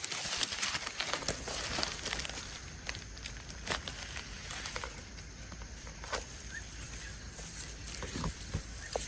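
Outdoor background with scattered light ticks and rustles, irregular and short, over a steady low hum.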